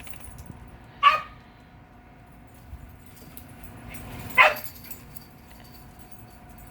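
A dog barking twice, two single barks about three seconds apart.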